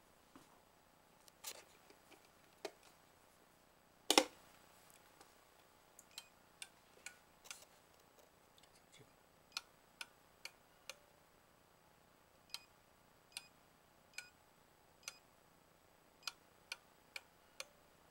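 A Viola four-gang touch light switch being worked: a series of faint, short, sharp clicks, mostly in quick runs of four spaced about half a second apart, with one louder knock about four seconds in.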